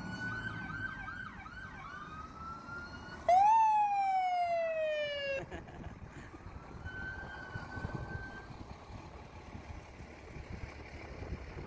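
Emergency vehicle sirens passing: a fast yelping siren at first, then about three seconds in a loud siren blast that sweeps up and slides down in pitch for about two seconds before cutting off abruptly, followed by a fainter siren tone.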